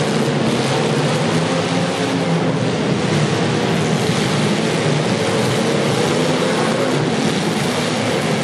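Several demolition derby cars' engines running together: a loud, steady din of engine noise with no single crash standing out.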